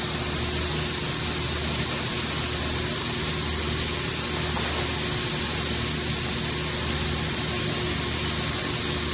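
Steady machinery noise: a strong, even hiss over a constant low hum, unchanging throughout.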